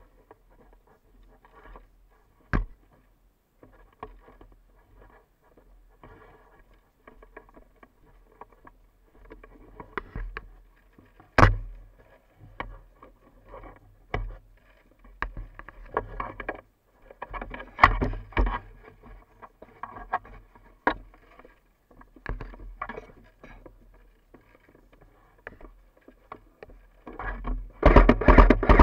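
Handling and brushing noise on an action camera carried with an airsoft gun through tall grass and bushes: rustling and scraping vegetation over a low rumble, with irregular sharp clicks and knocks, a few of them much louder, and a denser run of louder noise near the end.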